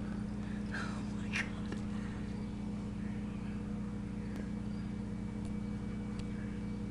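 Steady low mechanical hum with several fixed tones. Two short scratchy sounds come about a second in, and a few faint ticks follow later.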